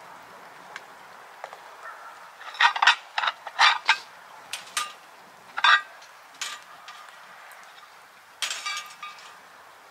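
Cast iron skillets clanking against the steel grill grate and each other as they are set down over a wood fire: a quick run of sharp metallic knocks a few seconds in, single knocks after, and a last clatter with a short ring near the end.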